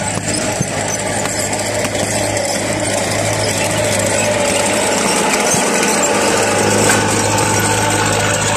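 Engine of a tracked carrier, built up as a German WWII-style tractor, running steadily as it drives close by.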